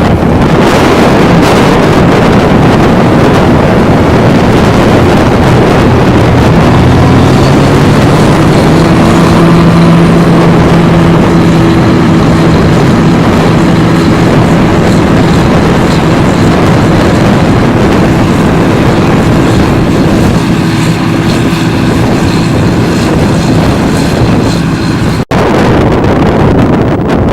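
Harvest machinery engine running at a steady speed under heavy wind noise on the microphone, its steady hum coming in about seven seconds in. The sound drops out for an instant near the end.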